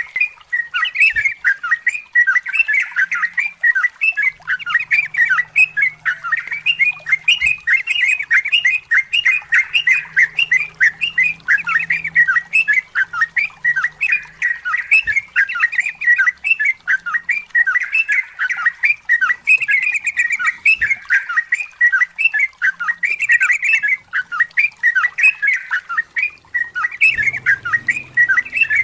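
Yellow-vented bulbul (trucukan) singing a long unbroken run of quick, bubbling chirps, one phrase after another with hardly a pause.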